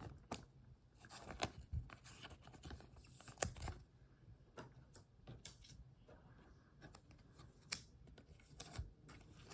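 Baseball trading cards being handled: faint rustling and sliding with scattered small clicks and taps.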